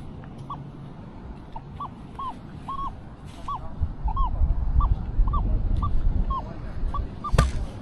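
Metal detector audio: a string of short chirping target tones, about two a second, each bending up and then down in pitch, as the coil sweeps over buried targets. Under them is a low rumble, and a single sharp click comes near the end.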